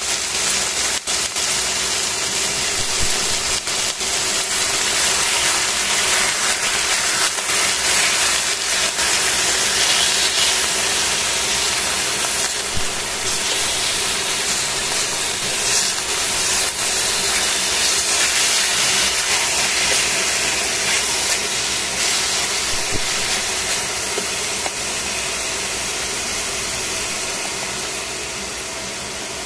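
Sliced chicken breast sizzling in a hot stainless steel frying pan: a steady hiss, with a few light clicks in the first few seconds, easing a little near the end.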